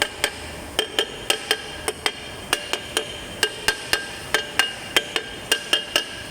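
A hammer striking a car's brake drum to seat it over the brake shoes. There are short runs of sharp blows, about four a second, and each strike rings with a metallic tone.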